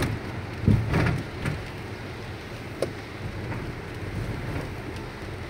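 Car driving on a wet road in the rain, heard from inside the cabin: a steady rumble of tyres and rain, with a short cluster of knocks about a second in and a single click near the middle.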